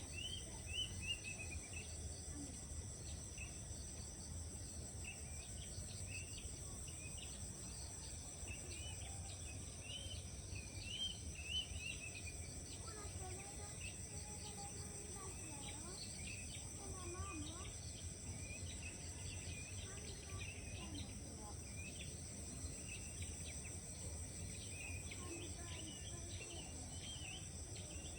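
Rice-paddy morning ambience: a steady high drone of insects with many short, repeated bird chirps over it, and a few lower calls around the middle.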